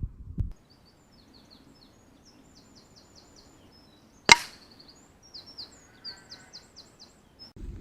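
A single sharp shot from a Hämmerli CR20 CO2 air rifle about four seconds in, with a short decaying tail. A small bird chirps in quick runs of high notes before and after the shot.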